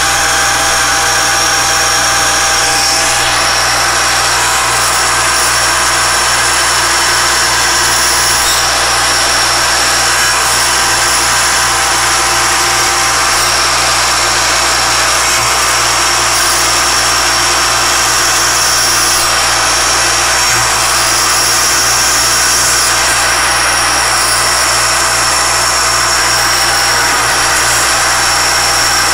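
Alexander Model 3A pantograph engraving and milling machine running, its spindle driving a small end mill around the outer edge of a metal watch-dial chapter ring. The sound is steady: a continuous high whine over a mechanical hum.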